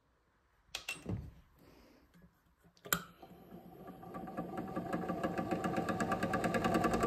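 A few clicks in the first three seconds. Then the 3D-printed mini Thunderbolt-style siren's 775 motor starts on low power (6 V, 1 A) and runs up, making an evenly pulsing mechanical buzz that slowly grows louder. At this power the siren is not getting much of a wail.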